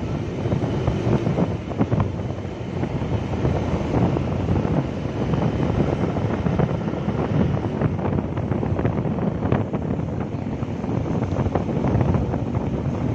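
Wind buffeting the microphone of a motorcycle riding at about 40 km/h, mixed with the bike's engine and road noise, rising and falling in irregular gusts.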